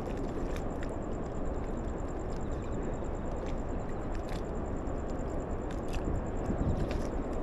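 Outdoor background noise: a steady low rumble with scattered faint clicks.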